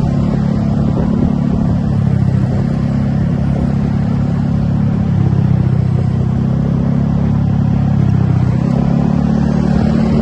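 Large bus diesel engine running with a deep, steady hum. Its pitch shifts slightly near the middle and again near the end as the engine speed changes. No horn sounds.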